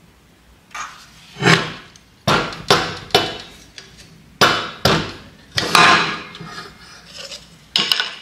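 Irregular sharp metal clanks with a short ring, about ten in all, from a Bobcat skid steer's variable speed drive pulley as its sliding sheave is worked up and down on the hub to show its travel.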